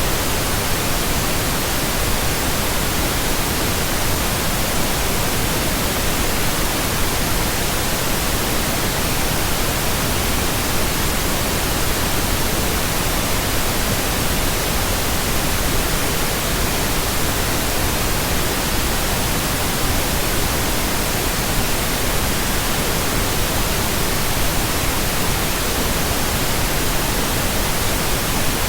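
Steady electronically generated pink noise: an even, unbroken hiss with no tones and no changes in level.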